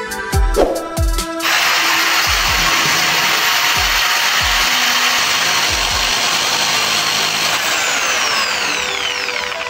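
Handheld electric drill switched on about a second and a half in, spinning a small ring on a bit against sandpaper with a steady grinding noise; near the end the whine falls away as the motor spins down. Background music with a beat plays underneath.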